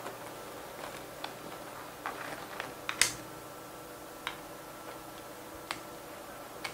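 Pruning shears snipping schefflera stems: several sharp clicks a second or more apart, the loudest about three seconds in.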